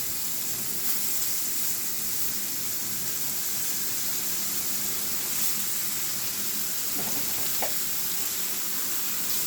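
Hot oil and fried onions sizzling steadily in a cooking pot as shredded ash gourd is added.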